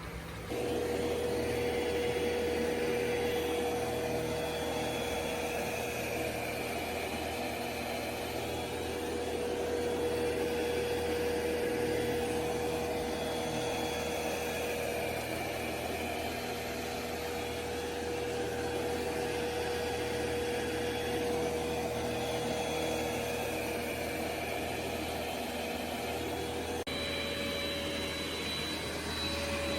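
Ecovacs Deebot X9 Pro robot vacuum running: a steady whirring with a constant hum, starting sharply about half a second in. Near the end the hum steps slightly higher in pitch.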